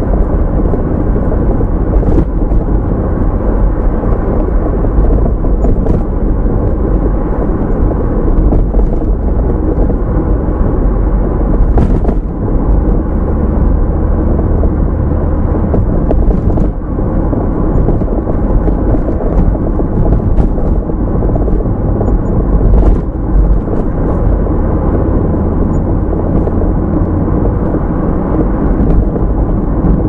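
A car driving: a steady, loud low rumble with occasional faint clicks or knocks.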